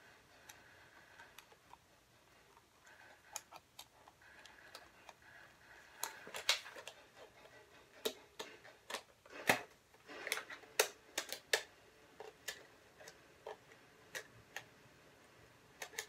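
Irregular plastic clicks and taps from handling an instant camera and snapping a coloured close-up lens attachment onto its lens, busiest in the middle.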